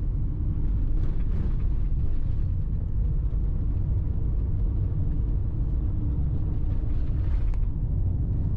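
Steady low rumble of a vehicle driving at road speed, heard from inside the cabin: road and engine noise.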